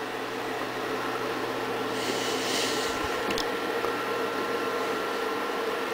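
Steady hum and whir of a Sun Ultra 10 workstation running. A brief hiss comes about two seconds in, and a faint click follows a little after three seconds.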